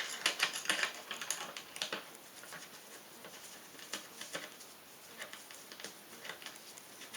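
Small sharp clicks and taps of a hand screwdriver working the screws that fix a CPU heat sink to its mounting bracket, quick and dense for about two seconds, then scattered.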